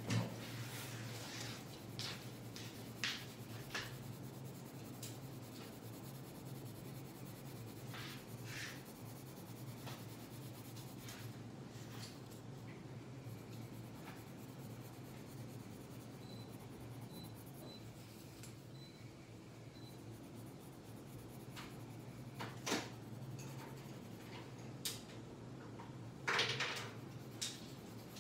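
Red coloured pencil shading on paper: a soft, steady scratching of short strokes, with a few sharper, louder strokes now and then, several of them in the last few seconds.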